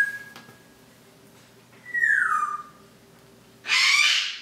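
Pet parrot whistling and squawking: a short held whistle that stops just under a second in, a falling whistle about two seconds in, then a loud harsh squawk near the end.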